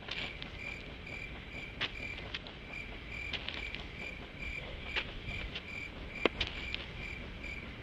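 An insect chirping steadily outdoors, about three short chirps a second, with a few faint clicks scattered through.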